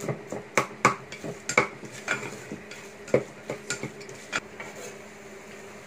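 Spatula scraping and knocking against the inside of a pressure-cooker pot as a dry minced chicken kofta masala is stirred and roasted dry, with a faint steady sizzle underneath. The strokes come irregularly, one or two a second, and stop about four seconds in, leaving only the sizzle.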